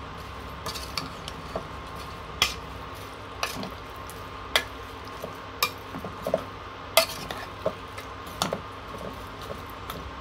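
Metal spoon stirring raw sliced onions, mutton bones and spices in an aluminium pressure cooker, with irregular sharp clinks of the spoon against the pot's side. A steady low hum runs underneath.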